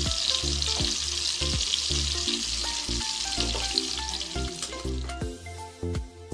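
Hot oil sizzling steadily around pointed gourds shallow-frying in a pan, fading about five seconds in. Background music with a steady beat plays underneath and is left on its own at the end.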